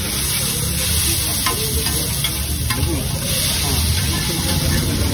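Chowmein noodles sizzling on a large flat griddle while a metal spatula stirs and scrapes through them, with a few sharp clicks of the spatula against the griddle.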